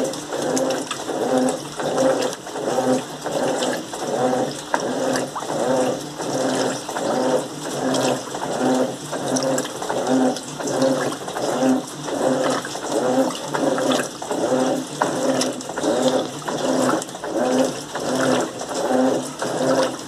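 Electrolux Turbo Limpeza 8 kg top-loading washing machine agitating a full tub of water and clothes: the agitator swings back and forth with a regular churning and sloshing, a little under two strokes a second.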